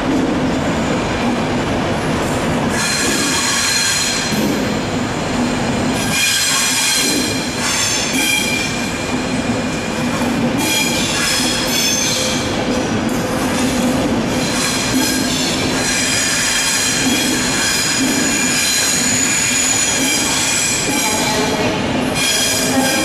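InterCity 225 Mark 4 coaches rolling slowly round a sharp curve, their wheels squealing against the rail in high tones that come and go over a steady rumble.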